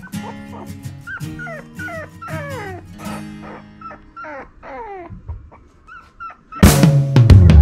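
West Highland White Terrier puppies whimpering: a string of short falling whines over soft background music. Loud rock music cuts in about a second before the end.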